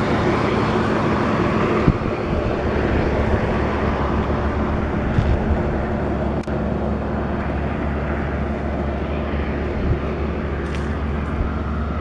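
Steady vehicle noise with a constant low engine hum, from traffic on a highway.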